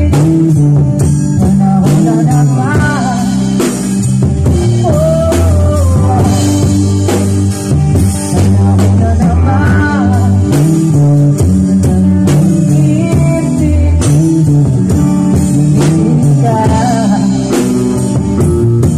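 Small live band jamming: drum kit, electric bass and guitars playing steadily, with a lead melody that slides and bends in pitch every few seconds.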